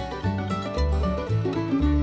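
Background music with plucked strings in a bluegrass or country style over a steady bass line.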